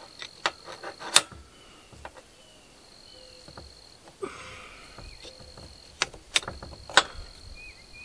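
Metal clinks and knocks of crescent wrenches being fitted onto a hydraulic valve-body spool and a flathead screwdriver, braced against a workbench. There are a few sharp clinks, loudest about a second in and again near the end, with a thin high tone coming and going in the background.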